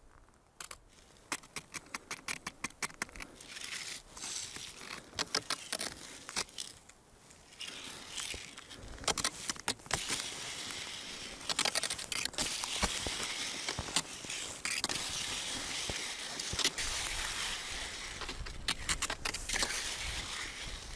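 Wooden skis scraping over the icy crust of a frozen lake, with the ski pole tips clicking against the ice. A run of quick clicks in the first few seconds, then a steady scraping hiss with sharp clicks from about eight seconds in.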